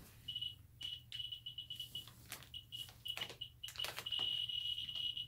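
Geiger counter chirping as its probe is held over a package of uranium ore. The chirps start sparse and quicken until, about four seconds in, they run together into a continuous high-pitched tone: a high count rate from the radioactive ore. A few sharp clicks come in among them.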